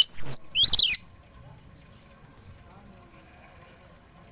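Oriental magpie-robin (kacer poci) singing: two short, loud phrases of sweeping whistled notes in the first second.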